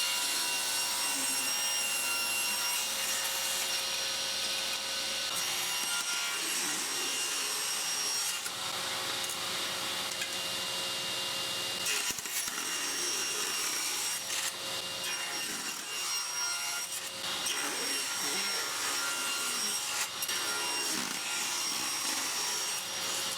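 Power saw running steadily while cutting a small wooden block into pieces, the sound of the cut changing a few times as each piece is sawn off.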